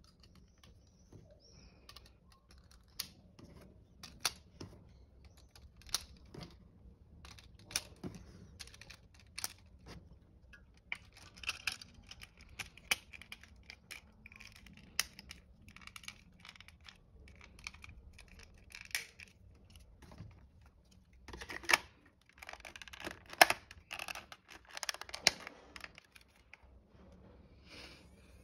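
Irregular clicks and clacks of AA batteries being handled and snapped into the plastic battery cartridge of a Metz 45 CT-1 flash, with a cluster of louder plastic clacks about three-quarters of the way through.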